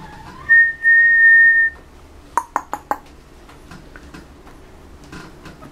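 One steady, high whistled note held for just over a second. It is followed by four quick, sharp clicks with a slight ring.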